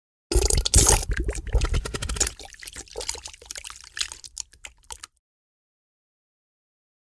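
Fart sound effect: a long sputtering run of pops, heaviest in the first second or so and thinning into scattered pops before cutting off abruptly about five seconds in.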